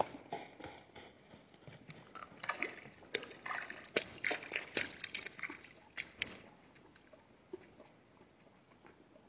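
Hartmann's mountain zebras splashing and sloshing through shallow water with their hooves in an irregular run of splashes and clicks, which dies away about six and a half seconds in.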